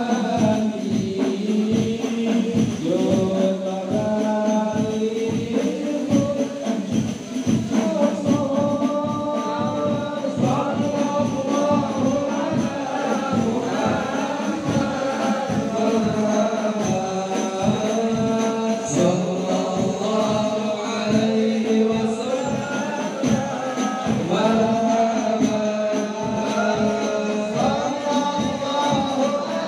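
A group of men singing devotional Islamic praise songs (shalawat) in chorus, led over a microphone, with a steady hand-drum beat.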